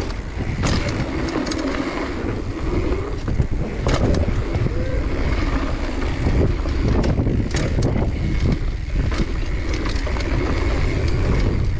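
Wind rushing over the microphone while a mountain bike rolls fast down a dirt trail, its tyres rumbling with scattered knocks and rattles from the bike over bumps.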